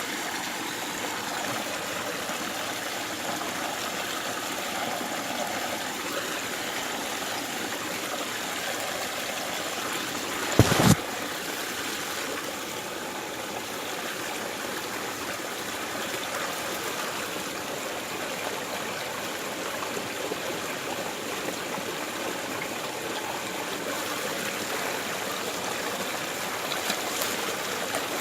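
Flowing stream water, a steady rushing and trickling. About ten seconds in there is a brief, loud clatter of a few sharp knocks.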